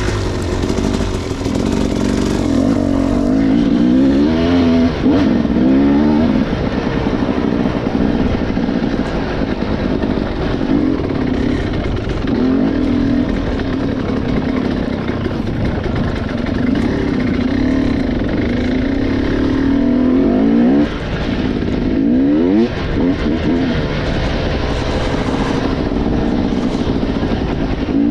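Motorcycle engine running while riding, its pitch climbing and dropping as the throttle opens and closes, most plainly a few seconds in and again about three-quarters of the way through.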